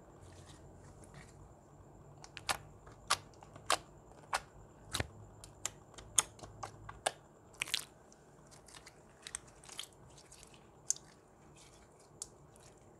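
Clear glitter slime being squeezed and pressed by hand, giving a string of sharp, irregular wet pops and clicks, about one or two a second, starting about two seconds in.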